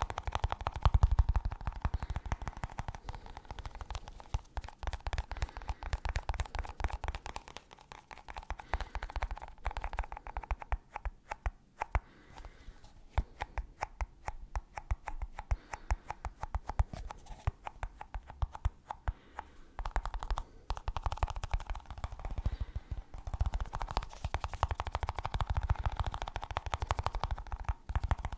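Rapid tapping on a snus box: fast, uneven runs of small clicks, louder and heavier at the start and again in the last third, lighter in the middle.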